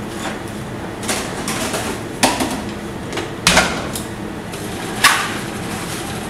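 A few sharp metal knocks and clunks as a stainless steel blender jug is handled and set down on its base on a steel counter, over a steady background hum.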